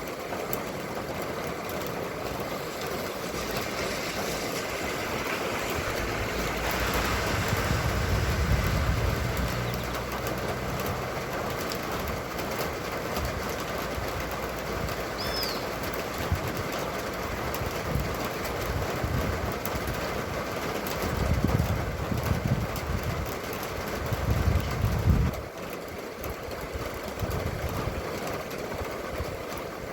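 Steady rain and wind noise with vehicles passing: a low rumble swells about 8 seconds in and again from about 21 seconds, stopping suddenly near 25 seconds. A short high chirp is heard about halfway through.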